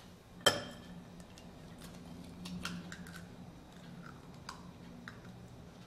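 An egg cracked once with a sharp crack, followed by faint clicks and taps as the shell is opened and the egg tipped into an egg separator.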